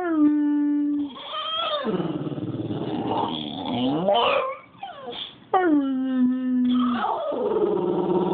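English bulldog howling: a run of howls. Two of them are long, sliding down in pitch and then holding a steady note for about a second, near the start and again about halfway through, with shorter wavering cries between them.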